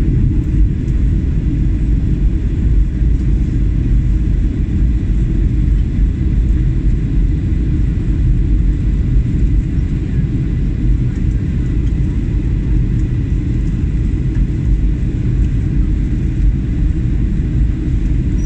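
Steady low rumble of an airliner's jet engines and the airflow over the fuselage, heard inside the passenger cabin in flight, with a faint steady whine above it.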